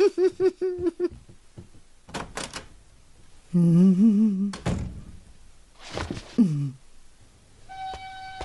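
Cartoon soundtrack: a held voice-like sound about a second long, then a dull thud, and a second thud with a falling pitched glide; bird chirps start near the end.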